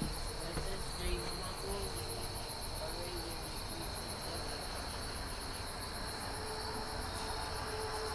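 Crickets chirping outdoors: a fast, even pulse of high chirps, about five a second, over a steady high trill.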